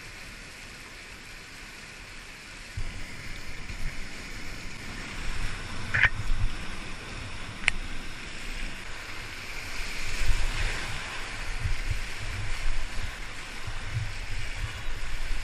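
Rushing white water of an artificial rapid, heard from a camera on a kayak. From about three seconds in it gets louder, with uneven low thumps as the boat runs the waves, and there are a couple of short sharp clicks.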